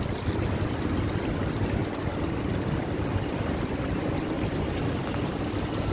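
Water from a tiered cascade fountain running steadily down its stepped sides, heard as an even rushing.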